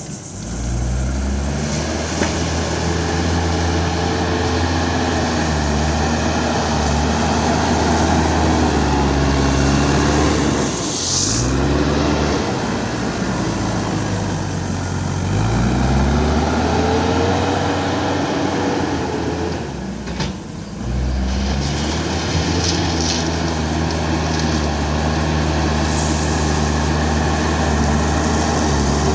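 JCB backhoe loader's diesel engine working under load, its pitch rising and falling as the throttle changes, dipping and picking up again twice. A brief high squeal comes about a third of the way in.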